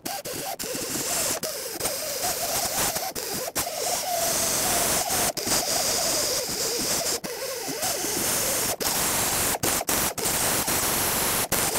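Die grinder with a small abrasive disc grinding the exhaust manifold's outlet flange clean: a steady gritty hiss over a whine that wavers in pitch as the motor loads and unloads, with many short breaks. It is dressing the gasketless metal-to-metal sealing face for the new pipe.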